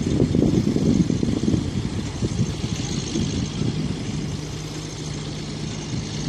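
Diesel engine of a truck-mounted mobile crane running during a lift, with a heavy, uneven low rumble that eases after about two seconds into a steady low hum.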